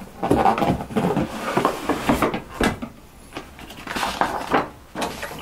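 A cardboard box being opened by hand: the lid and side flap scrape and slide, with small knocks and taps. Near the end a sheet of paper inside rustles as it is lifted.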